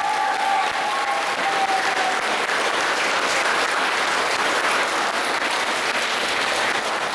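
Audience applauding steadily, while a held note dies away in the first two seconds.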